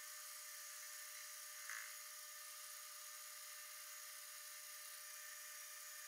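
Small hobby metal lathe running while the tool takes a facing cut across a welded steel workpiece: a faint, steady high-pitched whine and hiss, with a brief scrape about two seconds in.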